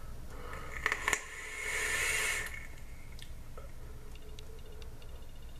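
A hit drawn from a vape atomizer with dual stainless steel coils fired at 70 watts: a few clicks about a second in, then about a second of airy hissing as the vapor is pulled through, followed by a quiet exhale.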